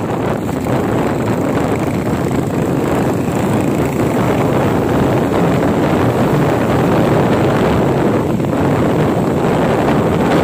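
Steady wind rushing over the microphone of a moving motorcycle, with the motorcycle's engine running underneath.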